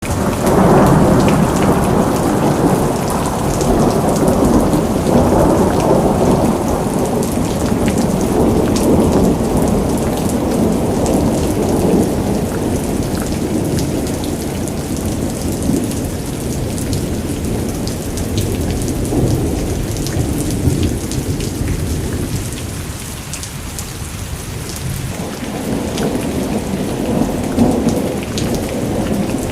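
Agricultural rain gun sprinkler spraying water over a soybean field: a dense rain-like rush and patter of falling water, with a heavy low rumble. It eases off about three quarters of the way through and then builds again.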